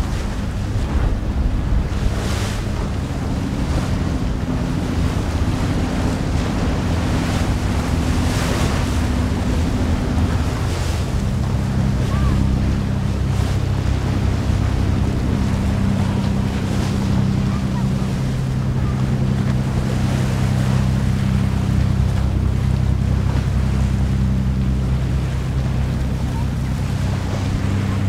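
Party fishing boat's diesel engines droning steadily as it runs through choppy water; the drone shifts lower and grows stronger about ten seconds in. Waves splash against the hull and wind buffets the microphone.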